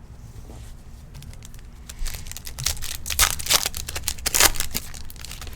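Wrapper of a 2021 Topps Stadium Club baseball card pack being torn open and crumpled. A loud burst of crinkling and tearing starts about two seconds in and lasts about three seconds.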